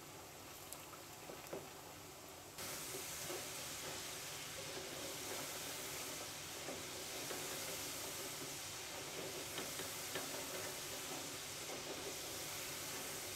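Cornflour-coated potato sticks deep-frying in hot oil in a wok: a steady sizzle with small crackles as they are turned with a slotted spoon. The sizzle jumps louder about two and a half seconds in.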